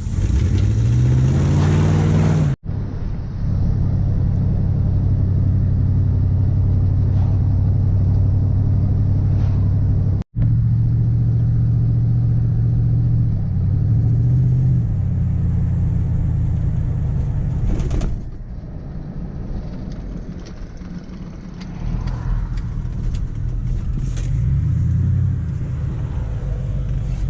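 Pickup truck's V8 engine running on the road, rising in pitch as it accelerates and dropping back as it shifts up, several times over. The sound cuts out for a moment twice.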